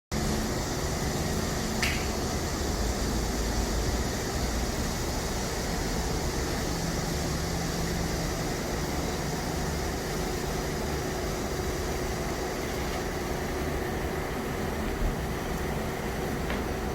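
Steady mechanical hum with a rush of air, like a ventilation fan or compressor running in a workshop, with a brief tick about two seconds in.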